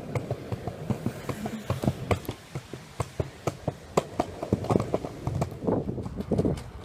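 Penny board's plastic wheels rolling on rough pavement, with a low rumble and rapid, irregular clicks and knocks, several a second.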